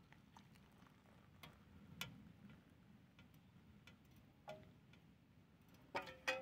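Faint scattered ticks and taps, then two sharper metallic clinks with a short ring near the end: a metal mess tin knocking against an enamel mug's rim as boiled water is poured into it for tea.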